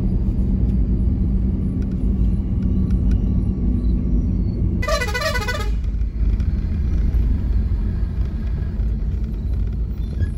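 Steady low engine and road rumble inside a moving car at night, with a vehicle horn honking once for about a second, about five seconds in.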